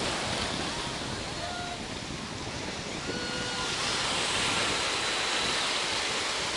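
Ocean surf breaking and washing on a beach, a steady rush of wave noise that swells slightly about halfway through, with wind on the microphone.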